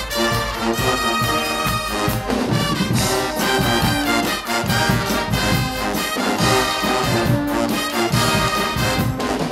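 Guggenmusik band playing loudly: trumpets and sousaphones blaring over a steady beat of bass drums, snare and cymbals.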